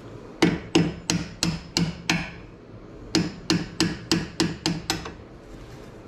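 Light hammer tapping a big screwdriver used as a drift against the bottom pad retaining pin of a Brembo six-piston brake caliper, driving the pin out. Two runs of sharp metal taps, about six and then about seven, roughly three a second, with a pause of about a second between.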